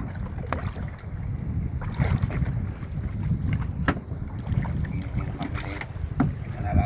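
Wind buffeting the microphone on a small fishing boat at sea, a steady low rumble with a few scattered knocks from the boat.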